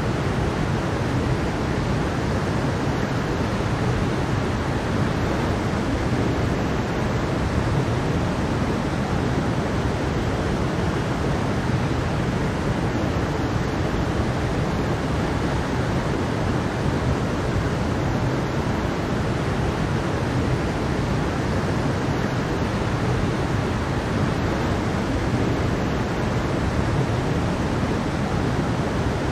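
Mountain stream with a small waterfall, water rushing and splashing as a steady, unchanging hiss.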